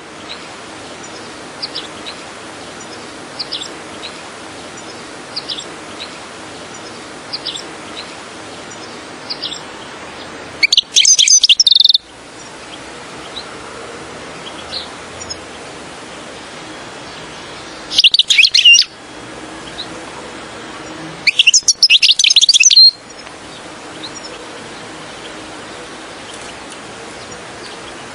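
European goldfinch song: faint short calls about every two seconds, then three loud bursts of rapid high twittering, each a second or so long, over a steady hiss.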